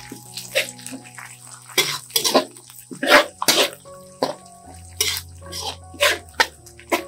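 Metal spatula scraping and stirring chopped onion, garlic and shallots frying in oil in a metal wok: a string of sharp scrapes, irregular at roughly one to two a second.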